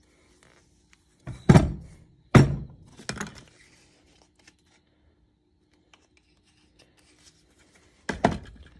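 Sharp knocks of a heavy brake caliper and hand tools being handled and set down on a workbench: a few thunks in the first three seconds and another near the end.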